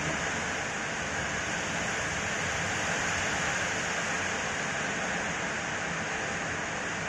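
Heavy rain pouring steadily, a dense even hiss with no breaks.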